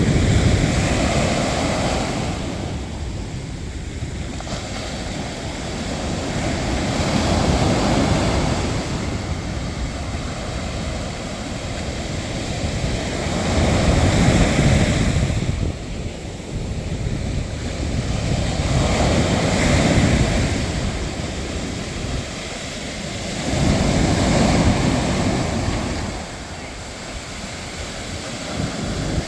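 Sea waves breaking and washing up the shore, the surf swelling and falling back about every six seconds.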